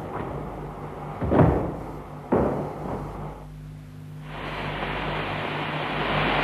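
Two heavy slams of railway carriage doors, about a second apart, then after a short lull a steady hiss starts up about four seconds in.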